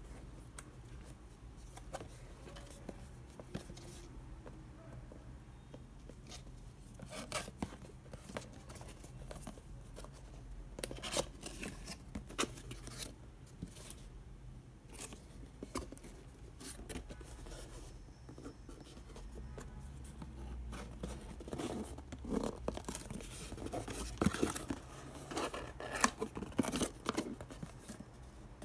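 Printed paperboard box being handled and its tuck flaps pulled open: scattered crackles, scrapes and snaps of card, busier and louder over the last several seconds.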